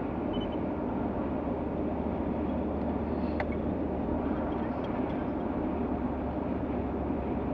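Steady road and engine noise inside a moving truck's cab at highway speed, with one faint click about three and a half seconds in.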